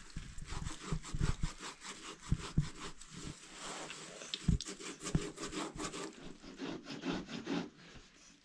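Cloth rustling and rubbing in irregular scratchy strokes as fabric is handled and pulled between two pairs of hands, with a few soft thumps, the loudest about halfway through.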